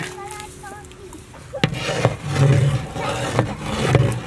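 A long metal ladle scraping ground chilli paste off a steel plate and stirring it into a large pot of hot oily stock, with a sharp metal knock about one and a half seconds in. The stirring noise grows louder in the second half.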